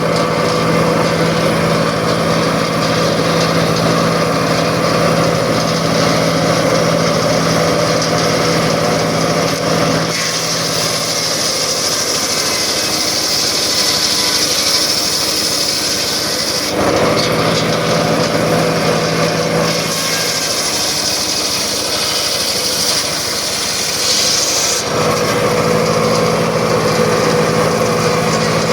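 Circular saw running steadily, twice cutting through wood: about ten seconds in for some six seconds, and again around twenty seconds in. Each cut adds a high hiss while the running tone drops under load.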